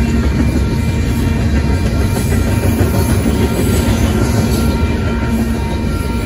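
Union Pacific manifest freight train's cars rolling past: a loud, steady rumble and clatter of steel wheels on the rails, with a faint humming tone that comes and goes over it.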